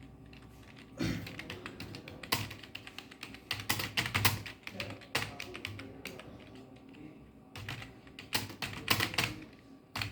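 Typing on a computer keyboard: runs of quick key clicks in irregular bursts with short pauses between them.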